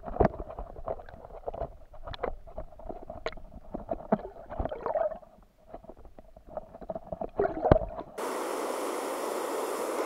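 Muffled underwater sound from a submerged action camera: irregular knocks, bumps and gurgles as a hooked carp is brought in beside the landing net. About eight seconds in it cuts to open air, with the steady rushing hiss of the waterfall and pool.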